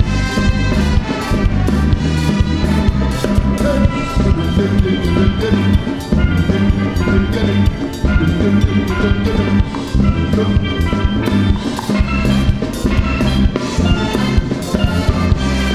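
Live calypso band playing an instrumental passage: a steelpan carries the melody over horns, bass and a drum kit keeping a steady beat.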